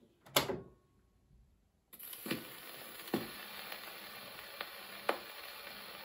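HMV 130 acoustic gramophone: a sharp click as the soundbox and tonearm are handled. About two seconds in, the needle sets down on a 78 rpm shellac record, and a steady surface hiss with a few scattered clicks follows from the lead-in groove before the music starts.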